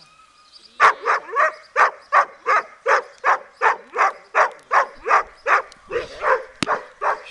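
A large dog barking hard and steadily, about three barks a second, starting about a second in. It is barking at a helper holding a bite tug, the drive barking of protection training.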